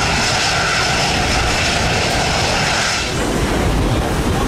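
Gulfstream business jet's rear-mounted turbofan engines running steadily at the runway end, a loud rush with a thin high whine over it. About three seconds in, this cuts off sharply to a more even rushing noise.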